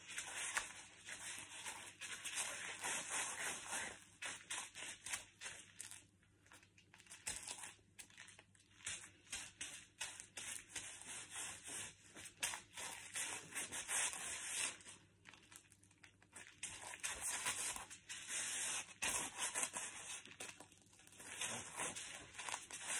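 Bare feet treading and grinding crushed crisps into crumbs on a hard tiled floor: a dry crunching and scraping in uneven bursts, broken by a couple of short pauses.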